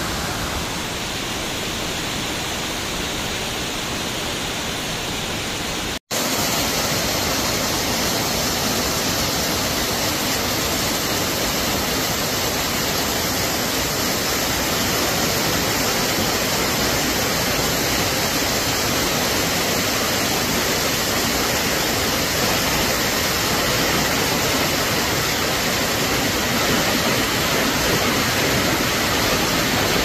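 Waterfall cascading down a rocky mountainside: a steady rush of falling water. It cuts out for an instant about six seconds in, then comes back a little louder.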